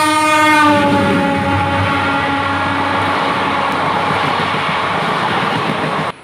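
Horn of an ICF multiple-unit train sounding as it passes on the adjacent track, its pitch dropping in the first second as it goes by. It is followed by the loud rush and clatter of its coaches going past close by, which cuts off suddenly near the end.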